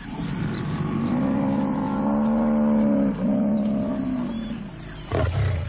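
Lion growling in a long, low, drawn-out rumble with a short break about three seconds in, then a sudden louder burst near the end.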